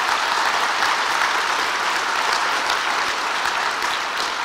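Audience applauding, a steady dense clapping that eases slightly near the end.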